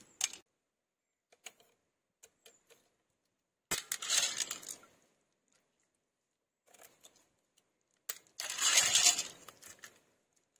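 Small clams being cut open one by one against a curved cutting blade: faint shell clicks, with two louder spells of shells clattering and crunching, each about a second long.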